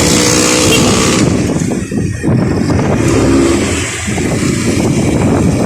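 Loud, steady road traffic noise: vehicle engines and tyres running close by.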